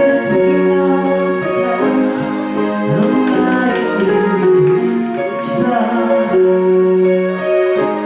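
Live band playing a song: sustained keyboard chords from a Roland Juno synthesizer over electric guitar and bass guitar.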